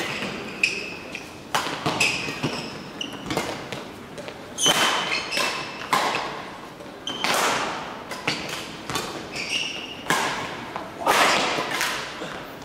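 Badminton rally: repeated sharp racket strikes on the shuttlecock, quick footfalls and lunges on the court floor, and short high squeaks of shoes on the floor.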